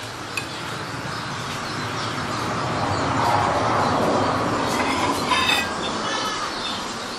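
Rumbling noise of a passing vehicle, swelling over about three seconds and then fading, with a few short high squeals about five seconds in.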